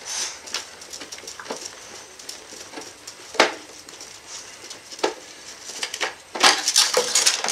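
Hand tools and parts being handled inside a laser printer's metal and plastic chassis: a few separate sharp clicks and knocks, then a quick run of clicking and rattling near the end.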